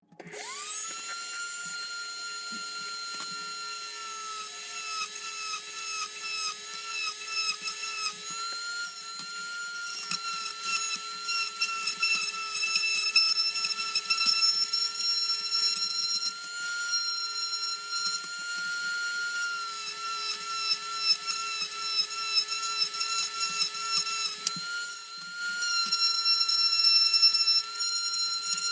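Small high-speed rotary tool spinning up and running with a steady high whine, its pitch dipping and wavering in places as it cuts through the kit's styrene plastic hull.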